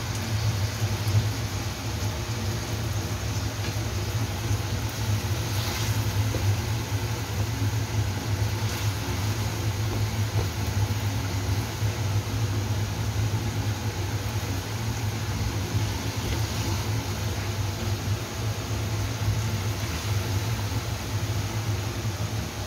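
Chicken wings sizzling and bubbling in sauce in a wok over a gas burner, under a steady low hum.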